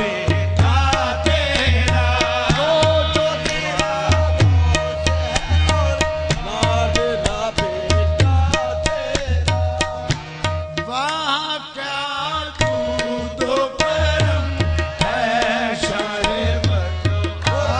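Qawwali: men singing over harmonium with a fast hand-drum beat. The drum beat drops out briefly about two-thirds of the way through while the singing carries on.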